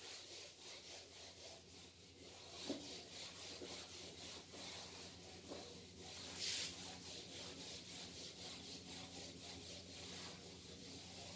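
Whiteboard duster rubbing marker off a whiteboard in quick, repeated back-and-forth strokes, with one louder swipe about six and a half seconds in.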